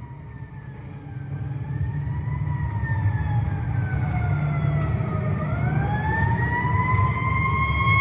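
A siren sounding: its pitch slowly falls, dips lowest about five seconds in, then rises again and holds high, over a low rumble that grows steadily louder.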